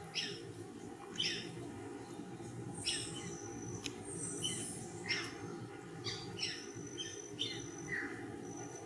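Black-bellied whistling-ducks calling: about ten short, high whistles that fall in pitch, spaced unevenly, over a steady low background rumble.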